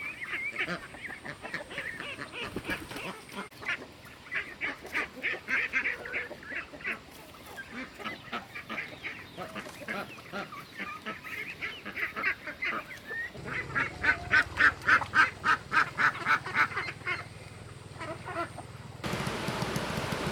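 Ducks quacking in quick repeated runs of short calls, the loudest and fastest run coming about two-thirds of the way through. Near the end the sound cuts suddenly to a steady hiss like rain.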